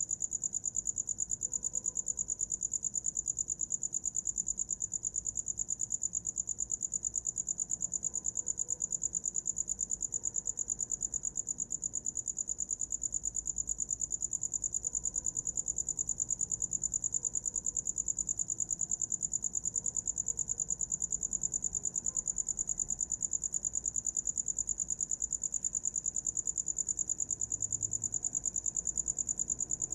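A cricket chirping: one high-pitched note repeated in rapid, even pulses without a break.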